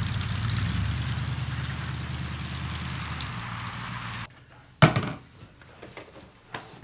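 Pickup truck driving away on a gravel lane, its engine hum and tyre crunch slowly fading, cut off suddenly about four seconds in. A moment later comes a single sharp knock, then a few light clicks and handling sounds at a kitchen counter.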